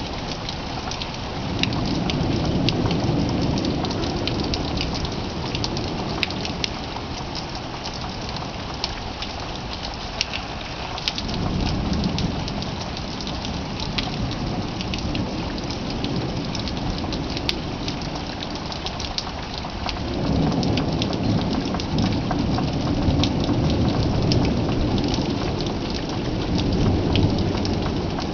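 Thunderstorm: steady rain with many sharp drop ticks, and three long low rolls of thunder. The first starts a couple of seconds in, a shorter one comes about eleven seconds in, and a long one from about twenty seconds in.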